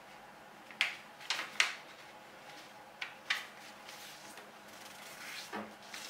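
Sheet of paper being folded in half and creased by hand: about five short crinkles and swipes in the first three and a half seconds, then quieter handling.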